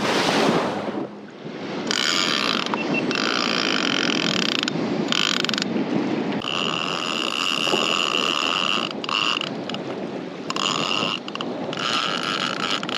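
Fishing reel drag buzzing as a hooked fish pulls line off: a high, steady whine that starts about two seconds in and comes in a series of runs with short breaks, over wind and waves.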